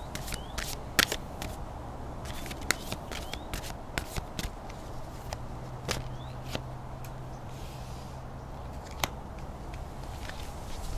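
A deck of cards being shuffled by hand: a run of irregular sharp clicks and snaps as the cards knock together.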